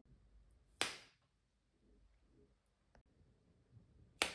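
An easyQs snacking cucumber snapped in two by hand, twice: a sharp crack about a second in and another near the end, each dying away quickly.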